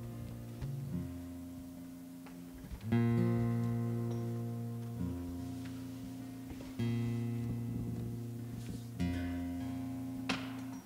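Acoustic guitar strumming slow chords, each left to ring and fade, with a new chord about every two seconds.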